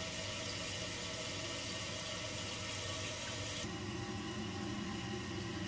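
Toilet tank refilling: water hissing steadily through the fill valve into the tank after the supply is turned back on. About two-thirds of the way in, the hiss cuts off abruptly and gives way to a duller, steady hum.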